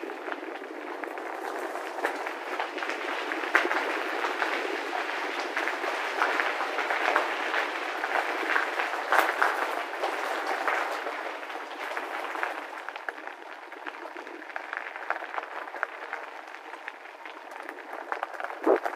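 Bicycle tyres crunching over a loose gravel path: a steady crackle with scattered sharper clicks of stones. It is louder through the middle and eases off in the last third.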